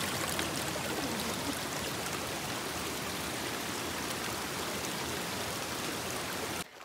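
A rocky forest stream flowing over boulders: a steady, even sound of running water. It cuts off suddenly near the end.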